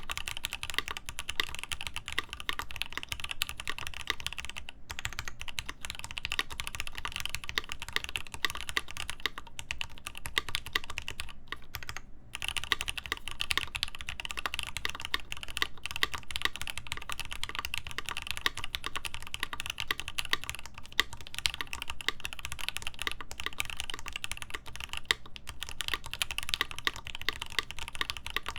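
Continuous typing on a Rama Works Kara mechanical keyboard: lubed Gateron Ink linear switches in a polycarbonate plate with an internal dampener, under GMK Terminal keycaps, giving a dense run of keystrokes. There are short breaks in the typing about five seconds in and around twelve seconds in.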